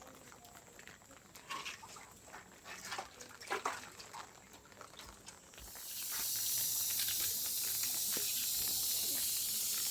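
Light knocks and clatter, then about six seconds in a loud steady hiss starts suddenly and keeps going.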